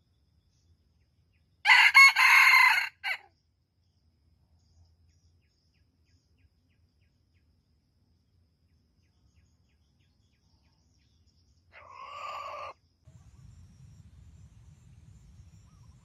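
Red junglefowl rooster crowing: one loud, short crow about two seconds in, then a fainter crow near twelve seconds. A faint low rumble comes in near the end.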